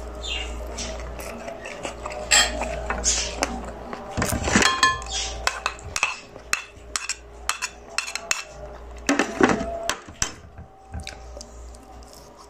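Metal spoon clinking and scraping against a bowl and plate as salad is served out, a string of short clicks with one clearer ringing clink about midway.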